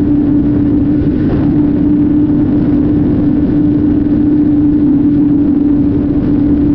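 Honda CBR500R's 471 cc parallel-twin engine running at steady high revs at about 185 km/h, over a heavy rush of wind.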